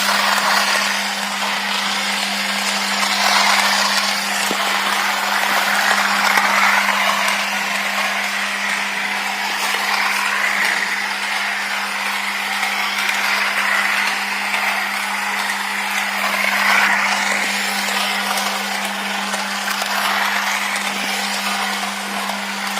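Toy train's small motor running with a steady hum, the rattle of its wheels on the track swelling and fading about every three and a half seconds.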